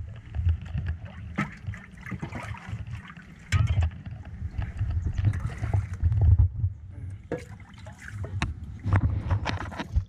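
Small wooden fishing boat under way on a river: water splashing and gurgling around the hull and in the leaking bottom, with scattered knocks of wood. An uneven low rumble comes and goes throughout.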